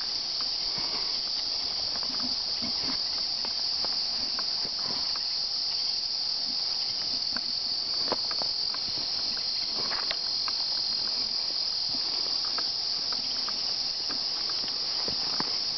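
Steady, high-pitched chorus of summer insects, with scattered footsteps through grass.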